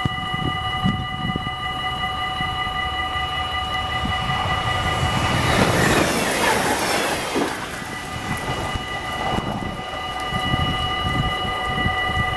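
Dutch level-crossing warning bells ringing steadily while an express train passes, its rushing rail noise swelling to a peak about six seconds in and then fading.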